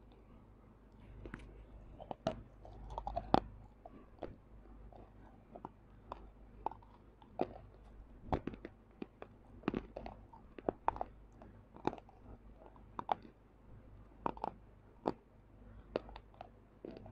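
Close-miked chewing of something crunchy, the mouth right against a clip-on microphone: irregular sharp crunches and wet mouth clicks, loudest about two to three seconds in.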